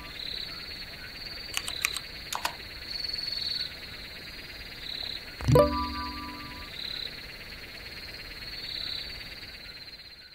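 Frog chorus croaking steadily as night ambience, with a short chat-message notification chime about five and a half seconds in and a few sharp clicks around two seconds.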